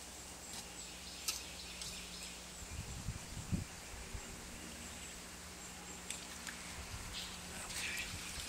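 Faint sloshing and splashing of a chicken carcass being dunked in a pot of scalding water, with a few soft knocks about three seconds in and a steady low hum behind. Near the end, water streams and drips off the bird as it is lifted out.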